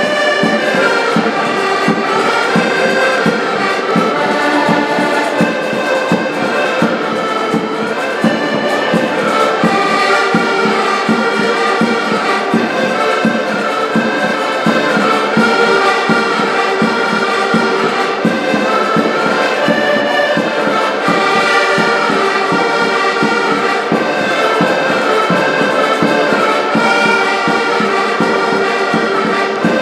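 Several diatonic button accordions (concertinas) playing a Portuguese folk tune together in unison, with a bass drum and a snare drum keeping a steady beat.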